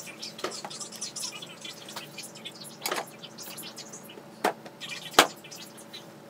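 Steel axle tube with half shaft and hub being fitted onto a small differential housing: a few sharp metal knocks and clinks as the parts are worked into place, the loudest about five seconds in.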